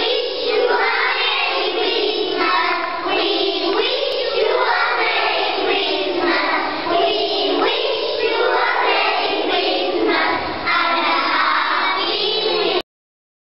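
Children singing together in chorus with music; the song cuts off suddenly near the end.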